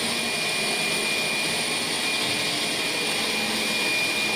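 Orient Longke UV 2513 flatbed UV printer running while it prints: a steady rushing machine noise with a thin, constant high whine.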